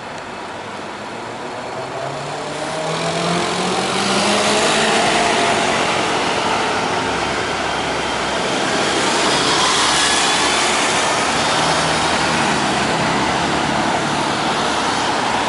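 Road traffic passing: vehicle engines and tyre noise that swell about three seconds in, with a second vehicle going by around ten seconds in.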